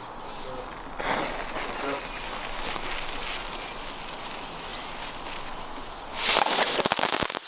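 A small firework going off: a hissing fuse with light crackle, then a little after six seconds a loud burst of rapid crackling that lasts about a second.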